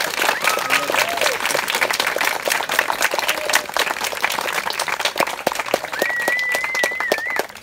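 Audience clapping steadily, with a long, high whistle held for a second or so near the end.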